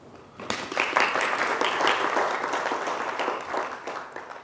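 Audience applauding, many hands clapping. It starts about half a second in and dies away near the end.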